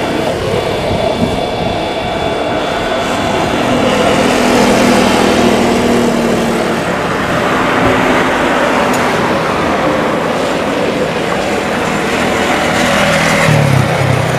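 Twin jet engines of a Super Air Jet Airbus A320-232 (IAE V2500 turbofans) running at taxi power as the airliner rolls toward the runway for takeoff. A steady rumble with a thin whine over it.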